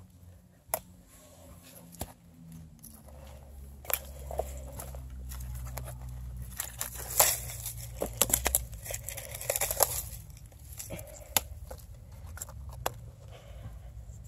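Footsteps in dry brush: twigs snapping and dry leaves crunching underfoot. The crackling is densest in the middle, with separate sharp snaps before and after.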